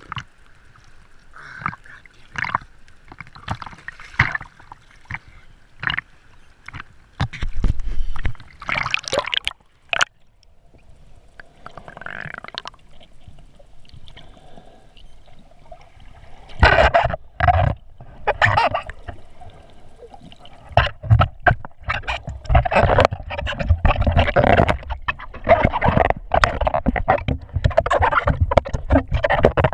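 Water sloshing and gurgling around a camera held at and just below the sea surface by a swimming snorkeler, with irregular knocks and splashes. It grows busier and louder from about halfway through.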